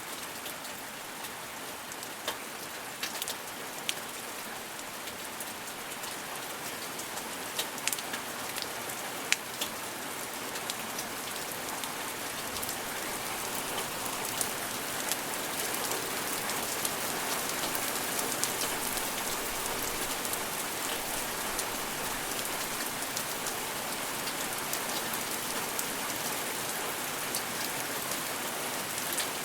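Steady rain falling on a surface, with sharp clicks of individual drops standing out in the first ten seconds or so. The rain grows slightly heavier and more even toward the end.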